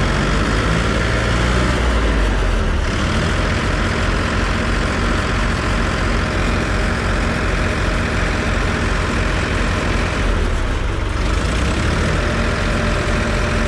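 Diesel engines of a Farmtrac 60 and a Farmtrac 6055 tractor running hard under load, the two tractors hitched together and pulling against each other. The drone is steady, its tone shifting about three seconds in and again near ten seconds.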